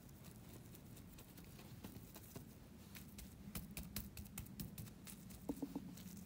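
Cling film crinkling and light tapping as hands press and square a plastic-wrapped block of dough. The sound is a faint scatter of small irregular clicks that grows busier after about two seconds.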